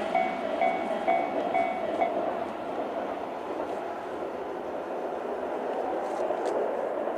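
Electronic level-crossing warning bells ringing about twice a second, stopping about two seconds in. The running noise of a Tobu 20400-series electric train passing the crossing carries on beneath and afterwards, fading near the end.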